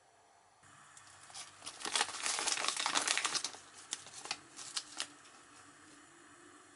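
Clear plastic bag of salt crinkling as a teaspoon is dug into it, a dense crackle for about two seconds, followed by a few separate crackles.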